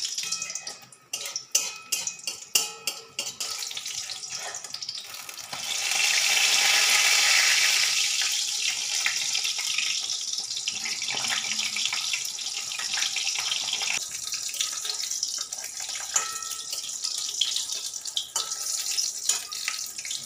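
Batter-coated pui (Malabar spinach) leaf fritter deep-frying in hot oil in an aluminium kadai: a steady sizzle with sharp crackles and pops in the first few seconds. The sizzle swells louder about six seconds in, then settles back.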